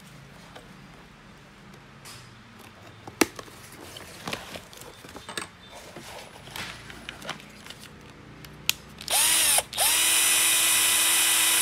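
Cordless drill: a few handling clicks and knocks, then about nine seconds in its motor spins up quickly to a steady high whine, stops for a moment, and spins up again at full speed.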